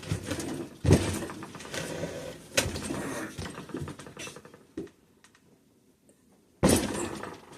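Metal engine parts and tools clanking and knocking during engine teardown. There are three sharp knocks, about a second in, a little later, and near the end, with lighter rattling of parts between them and a short quiet spell before the last.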